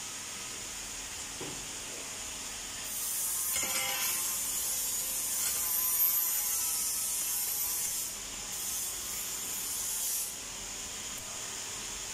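Arc welding on a metal frame: the welding arc crackles and hisses in a long run starting about three seconds in, then a shorter run after a brief pause.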